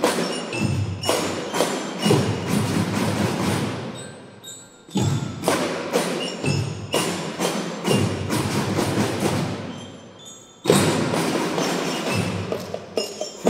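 Children's drum band playing: bass and snare drums with glockenspiels struck by mallets, in loud phrases that die away and restart about five seconds in and again near the end, the bell tones ringing on in the large hall.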